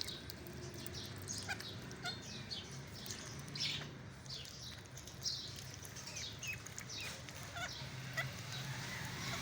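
Ducklings peeping: a run of short, high peeps, each falling in pitch, a few a second.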